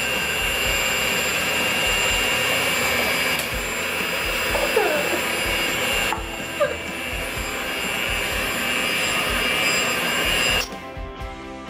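Electric hand mixer running steadily with a high whine as its beaters churn chocolate cake batter in a glass bowl. The motor cuts out abruptly about a second before the end, and background music takes over.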